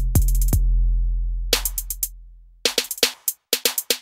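Background music: an electronic drum-machine beat with a deep bass kick that rings on and fades, and quick clicking hi-hat hits.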